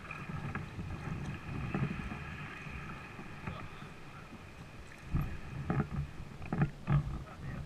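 Kayak being paddled through weedy water: paddle strokes and knocks on the plastic hull, with a run of louder dull thumps in the last few seconds. A thin steady high-pitched tone sounds through the first half.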